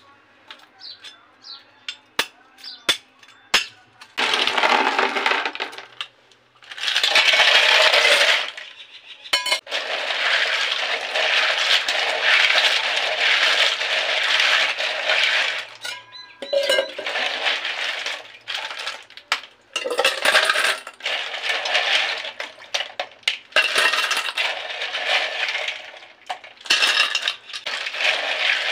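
A knife blade cracking the tips off water snail shells, a few sharp separate cracks. From about four seconds in, a mass of snails is rubbed and churned by hand in a metal basin of water: shells clinking and rattling against each other and the basin, with splashing, in long stretches broken by short pauses.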